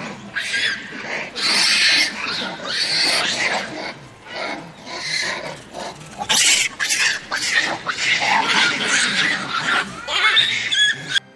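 A farm animal's harsh, noisy calls, repeated in bursts of a second or so, cutting off abruptly near the end.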